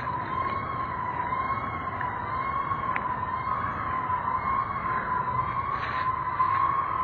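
Freight train wheels screaming as the train rolls slowly past: a steady high squeal that wavers slowly up and down in pitch over the low rumble of the cars. The uploader blames the noise on poorly maintained wheel assemblies.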